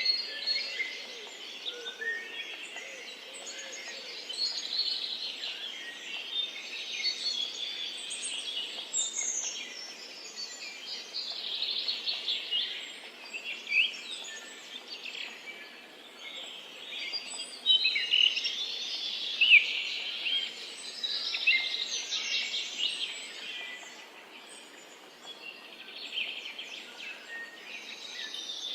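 Many songbirds chirping and trilling at once, a dense overlapping chorus of short high calls and whistles over a faint steady background hiss.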